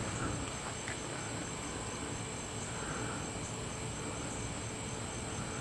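Steady background noise with a faint thin high whine and no distinct events.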